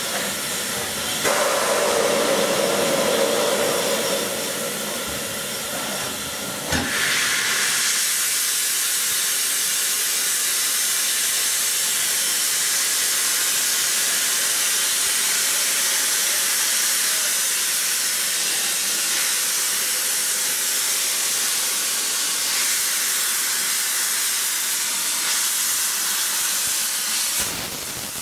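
Ivatt Class 4MT 2-6-0 steam locomotive No. 43106 blowing steam from its open cylinder drain cocks: a loud, steady hiss that surges suddenly about seven seconds in. A held tone sounds under the hiss for the first few seconds.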